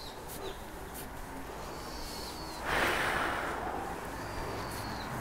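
Golf driver striking a teed ball, a faint click just after the start. Nearly three seconds in comes a short rush of breathy noise that fades over about a second, with thin high chirps in the background.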